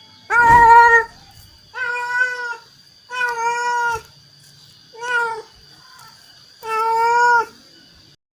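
A domestic cat meowing five times, each a drawn-out, fairly high-pitched call of under a second, with pauses of about a second between them.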